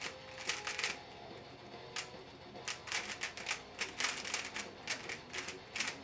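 Aolong V1 3x3 speedcube being turned fast by hand during a solve: rapid plastic clicking of the layers in quick runs, with brief pauses between them.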